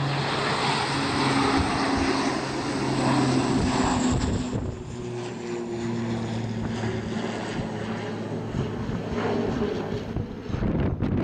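Turboprop airliner's engines and propellers running loud, a steady droning hum over a rush of engine noise that dips and settles slightly lower in pitch a little over four seconds in.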